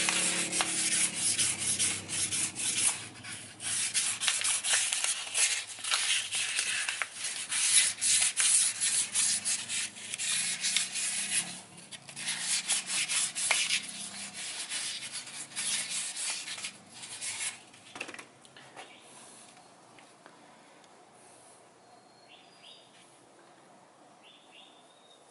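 Cloth towel rubbing briskly over a small metal engine part, a long run of scrubbing strokes that dies away about eighteen seconds in.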